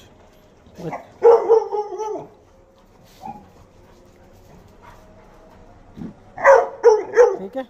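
Dogs barking during rough play: one longer bark about a second in, then a quick run of about four barks near the end.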